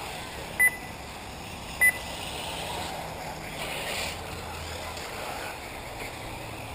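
Two short, loud electronic beeps, a little over a second apart, typical of a race lap-timing system, over the steady noise of 1/8-scale electric RC buggies running around the track.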